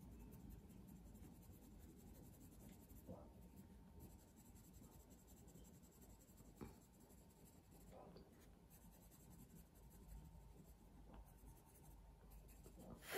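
Faint scratching of a lavender coloured pencil shading on toothy cartridge drawing paper, with a few soft clicks.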